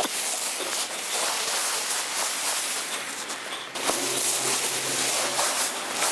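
Dry fallen leaves rustling and crackling as they are poured out of a woven plastic sack onto a pile, with the sack itself rustling as it is shaken empty.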